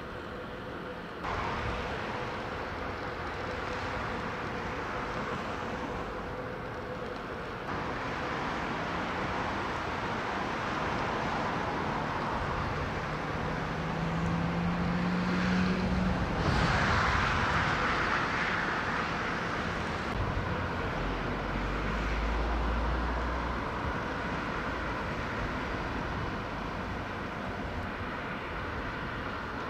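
Steady outdoor background noise of a city harbour and shipyard: a constant hum of distant traffic and machinery, with a louder vehicle-like swell about halfway through and a low rumble later on.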